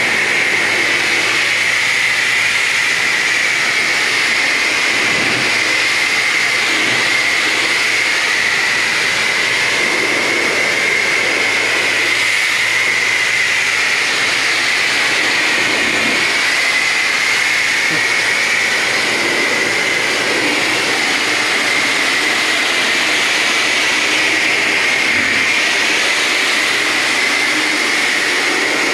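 A car wash's high-pressure wand spraying water onto a car's roof and glass: a steady, loud hiss with a high tone that wavers slightly in pitch.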